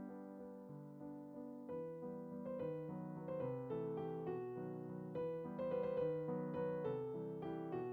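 Soft background piano music, slow notes at first, becoming busier and moving higher about two seconds in.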